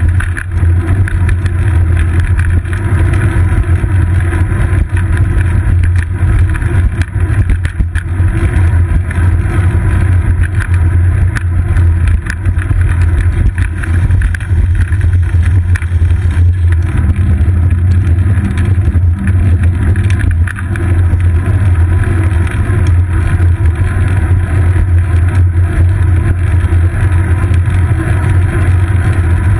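Steady low rumble of wind and road vibration picked up by a GoPro Hero 2 in its housing, mounted on the seat post of a bicycle rolling over asphalt.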